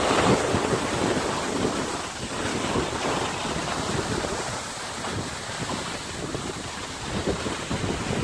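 Wind buffeting the microphone during a downhill ski run: a low, uneven rumble under a steady rushing hiss.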